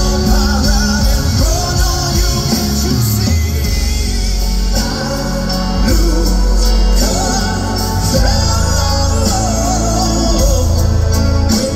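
Live rock band playing: a male lead singer's voice over drums, bass guitar and keyboard.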